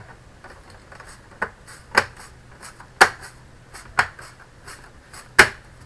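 Plastic snap clips of an all-in-one PC's rear cover clicking into place as the cover is pressed shut along its top edge: five sharp clicks about a second apart.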